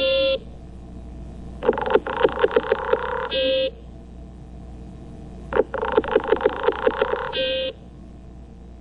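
Heteronotus treehopper vibrational signals, picked up from the host plant and made audible. There are two full bouts, each a train of about eight buzzy pulses lasting a second and a half and ending in a short pure-pitched tone, plus the closing tone of an earlier bout right at the start.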